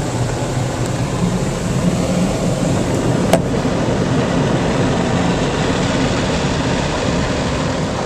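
Automatic car wash machinery running, heard from inside the car: a steady wash of noise over a constant low hum. There is one sharp click about three seconds in.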